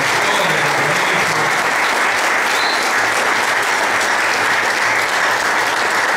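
Audience applauding: many people clapping in a dense, steady round that holds at an even level throughout.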